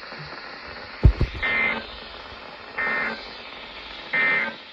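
Three bursts of NOAA Weather Radio SAME header data tones over radio hiss, about a second and a half apart. This harsh digital code opens a new Emergency Alert System warning. A short low thump comes just before the first burst.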